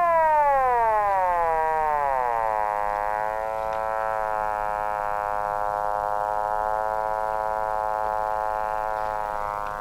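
Arduino Mozzi wave-packet synthesis playing through a small speaker: a buzzy tone rich in overtones that glides down in pitch over the first two seconds or so, then holds steady at one pitch.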